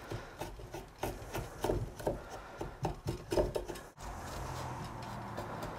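Draw knife shaving wood on an ox yoke, a string of short, uneven scraping strokes as the blade peels off shavings. The strokes stop abruptly about four seconds in, leaving a low steady hum.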